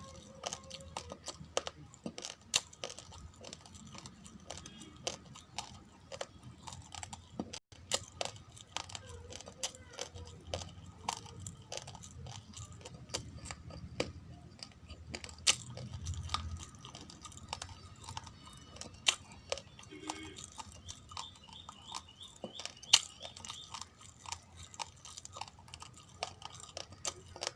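Close-miked crunching and chewing of raw, uncooked rice grains: a rapid, irregular stream of sharp crunches.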